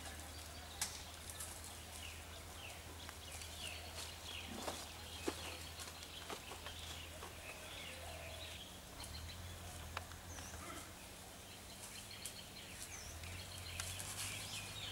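Outdoor ambience of small birds chirping on and off over a low steady hum, with a couple of sharp clicks.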